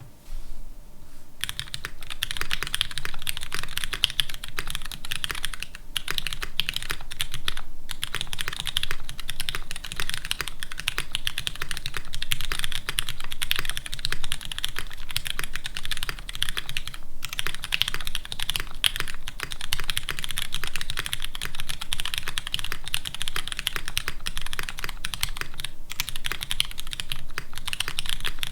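Fast, continuous typing on a GOK 7v custom mechanical keyboard: lubed Cherry MX Brown tactile switches with 62g double springs in an aluminium plate, GMK keycaps, and an empty case with no foam or filling. The keystrokes start about a second and a half in, with a few brief pauses.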